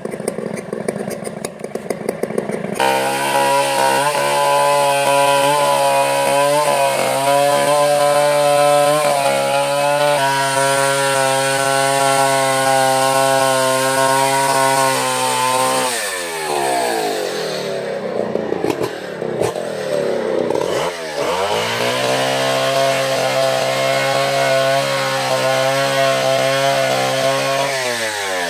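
Two-stroke Stihl chainsaw cutting coconut wood into beams, held at a steady high rev under load. It runs rougher and lower for the first few seconds, then revs up about three seconds in, and the engine speed dips and picks back up a few times in the second half.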